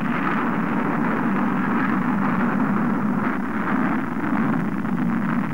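Rocket engines at liftoff: a loud, steady rushing rumble of exhaust.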